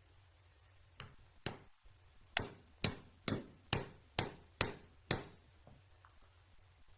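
Hammer blows on a bent metal footrest to straighten it: two lighter taps, then seven sharp, ringing strikes at about two a second.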